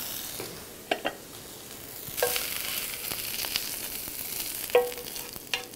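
Stir-fried bracken fern sizzling in a hot frying pan just taken off the heat, while chopsticks scrape it out onto a plate. A handful of sharp clinks of the chopsticks against the pan, some ringing briefly, over the steady sizzle.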